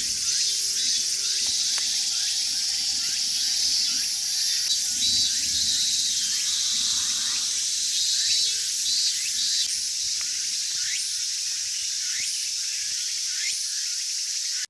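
Steady chorus of insects, a dense high-pitched shrill drone, with short rising chirps repeating a few times a second.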